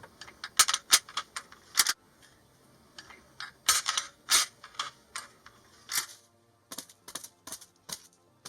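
Foley sound effects: sharp clicks and knocks coming in irregular clusters with short quiet gaps between them.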